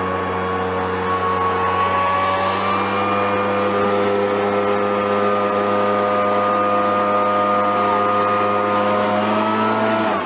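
Petrol backpack leaf blower running steadily at high throttle, an engine drone with a whine from the fan. It cuts off suddenly near the end.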